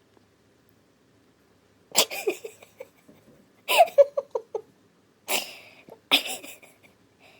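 Four short, sharp sneezes, coming at uneven gaps of about one to two seconds.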